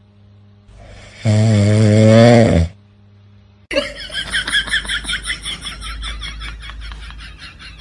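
A sleeping dog snoring loudly: one long, wavering snore lasting over a second, starting about a second in. About four seconds in, music with a quick, even beat takes over.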